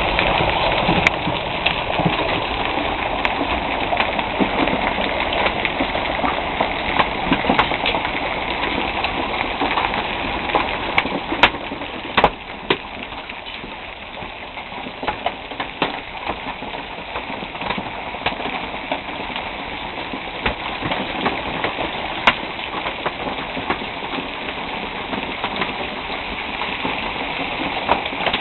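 Heavy hail falling: a dense, continuous clatter of hailstones striking, with sharper single impacts standing out. It eases slightly about twelve seconds in.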